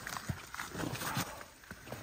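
A person's footsteps on rough ground: a few uneven steps in the first second or so, then quieter.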